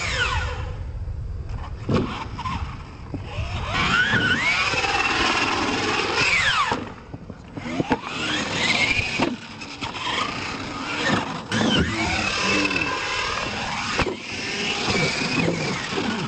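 Radio-controlled monster truck's electric motor whining, its pitch rising and falling again and again as the throttle is worked. A few sharp knocks come from the truck landing and tumbling on the dirt.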